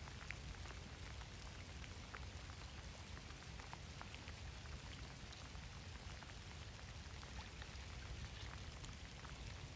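Light rain falling on a river's surface and the bankside grass: a steady patter of many small drop ticks, over a steady low rumble.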